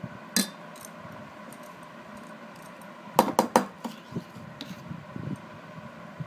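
A steel spoon clinks against a steel bowl while filling is scooped out. There is one clink near the start, then a quick run of three or four louder clinks about three seconds in.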